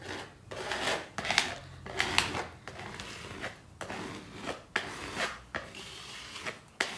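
A painting spatula scraping thick paint across a rough, textured board in a dozen or so short rasping strokes, pushing the paint into the texture.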